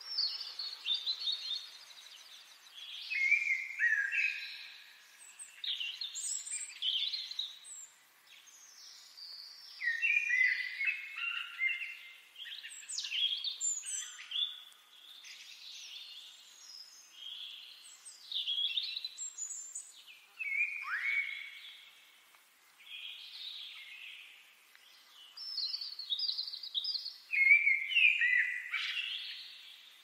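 Songbirds singing: a run of quick chirps, trills and short downward-sweeping whistles in bursts of a second or two, with brief pauses between phrases.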